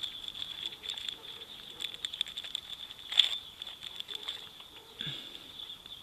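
Small plastic clicks and rustles of a buckle clip being pulled out of a leather pouch and handled, with one sharper click about three seconds in. Insects trill steadily at a high pitch behind it.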